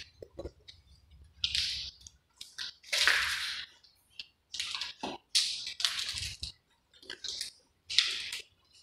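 Footsteps crunching and scuffing, an irregular series of short gritty crunches.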